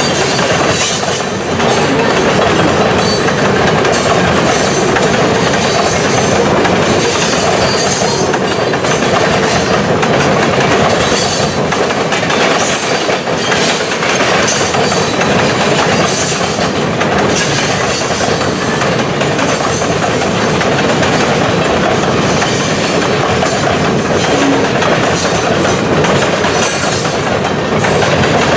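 Loaded grain cars of a freight train rolling past, a steady loud rumble with wheels clicking over the rail joints.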